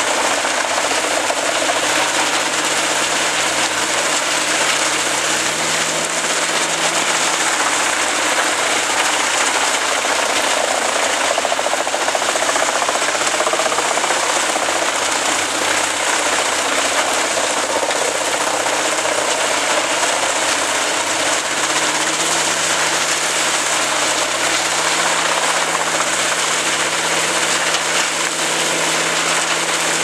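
Large truck-mounted wood chipper chipping brush and branches fed in by a crane grapple: a steady engine note under the continuous noise of wood being shredded by the spiked feed roller and cutters.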